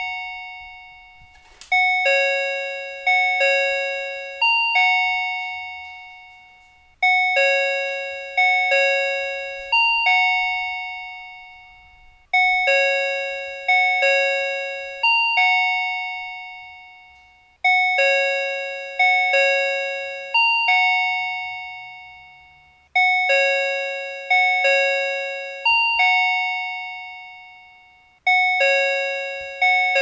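Chikuho Electric Railway platform approach chime B: a four-note electronic bell-like phrase repeated about every five seconds, each note struck and then fading, signalling that a tram is approaching.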